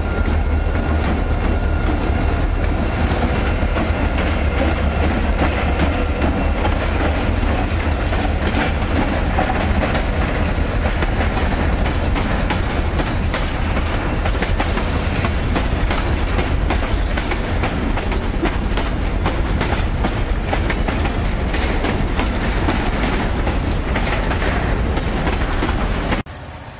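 A diesel freight train passing close by: several diesel locomotives run with a deep, steady rumble while the wheels of the hopper cars click continuously over the rail joints. The sound cuts off suddenly near the end.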